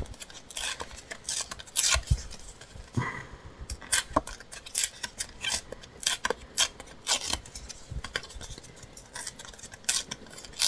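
Paper being torn and worked by hand: irregular crackles and sharp little ticks, with a few louder snaps.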